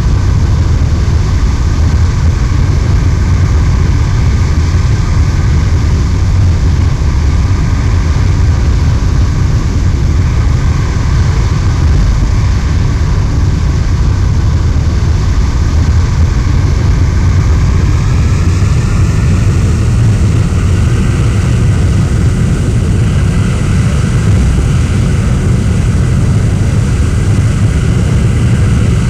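Jet aircraft engine running with a steady, loud roar and a deep rumble; its whine rises in pitch a little over halfway through, then holds.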